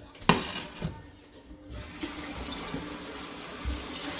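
A sharp knock of kitchenware being handled, then a lighter one, as the air fryer is being unloaded. A little under two seconds in, a steady rushing hiss starts suddenly and keeps going.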